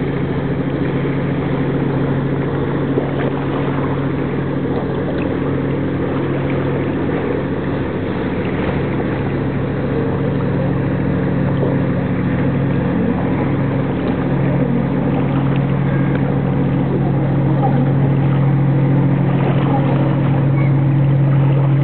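Sightseeing boat's engine droning steadily as it passes across the lake, growing a little louder in the second half as it draws nearer.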